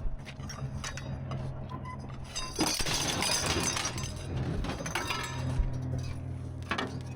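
Scrap being handled and loaded, with clattering and clinking of hard objects. It is loudest for about a second and a half near the middle, over a steady low hum.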